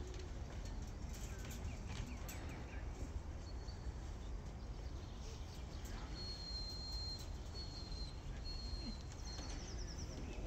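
Steady low rumble of wind on the microphone in an open field. About six seconds in, a few faint, thin, high whistled tones come one after another, and a quick high trill follows near the end.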